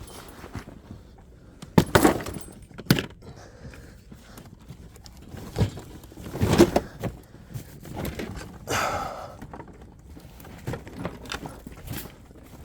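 Objects being rummaged through and handled: scattered sharp knocks, thuds and clatter as things are moved and set down.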